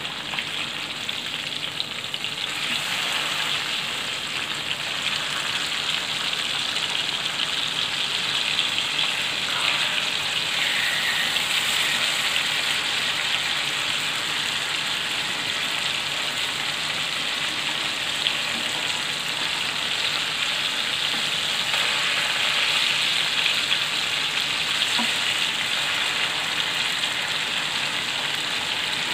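Masala-coated fish steaks shallow-frying in oil in a nonstick pan: a steady, dense sizzle, a little louder from about two seconds in, as the pieces are turned to cook their second side.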